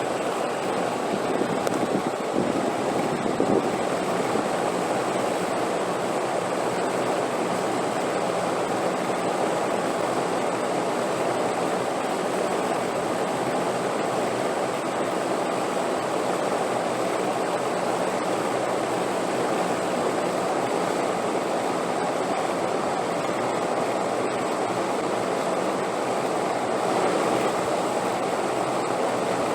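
Wind blowing in a steady rush with no gusting rhythm, swelling slightly a couple of seconds in and again near the end.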